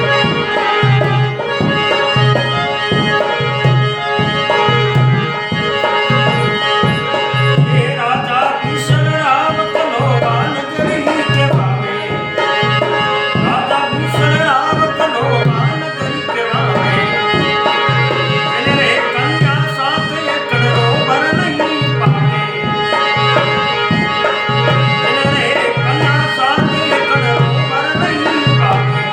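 Devotional folk music with tabla: a steady tabla beat of about one and a half strokes a second under a held harmonium-like drone, with a wavering melody line joining in about eight seconds in.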